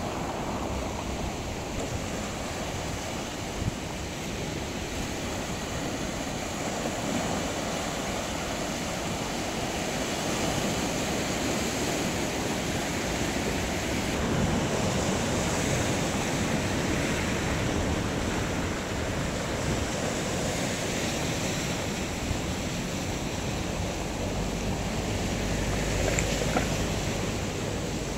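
Sea surf washing onto the shore, a continuous rush of waves that swells and eases slowly, loudest through the middle and again near the end.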